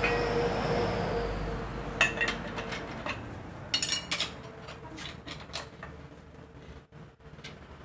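A steel hand tool clinking against the steel of a Mitsubishi Canter 125 truck differential while its bearing adjustment is worked: a run of sharp metallic clinks with a ringing edge, starting about two seconds in and tapering off. A steady background rumble fades out over the first couple of seconds.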